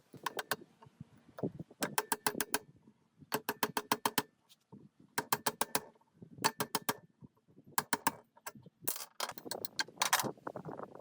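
Rapid sharp taps in short bursts, about eight a second, with brief pauses between the bursts, repeated about seven times.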